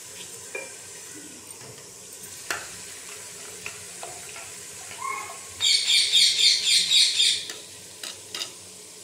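Onion-tomato masala frying in a pot with a low, steady sizzle. About halfway through, a spatula scrapes quickly back and forth against the pot for a second or two, the loudest part, as the masala is stirred.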